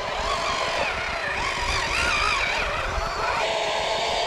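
Small motors of radio-controlled model vehicles whining, several pitches gliding up and down together as the models speed up and slow down.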